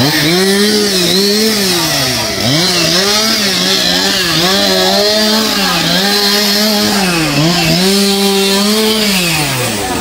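Chainsaw running at high revs while cutting a tree, its pitch dropping and recovering every second or so, then falling away near the end as the revs die down.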